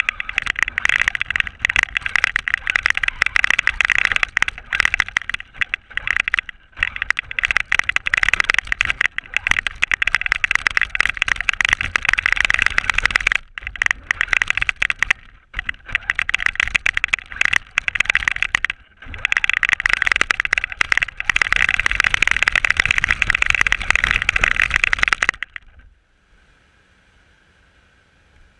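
Radio-controlled car driving over snow, its motor and drivetrain whining and its chassis chattering, heard from a camera mounted on the car. It cuts out briefly several times and goes quiet about two seconds before the end, leaving only a faint steady tone.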